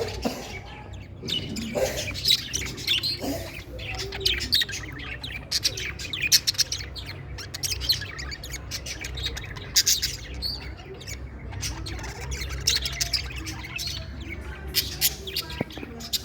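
Pet budgerigars chirping and chattering in quick runs of short calls, over a low steady hum.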